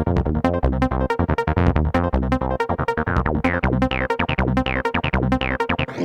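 Background electronic music with a fast, steady beat over held synthesizer tones, with a few short falling synth sweeps near the end.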